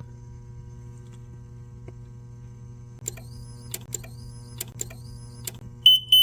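Shorted 24 V DC control circuit, with the power supply cutting out and coming back on. Under a steady electrical hum, irregular sharp buzzing clicks start about halfway in. Near the end a rapid, high-pitched beeping begins, about three to four beeps a second.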